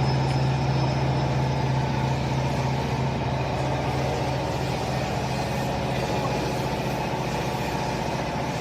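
Hydraulic baling press's electric motor and hydraulic pump running with a steady hum.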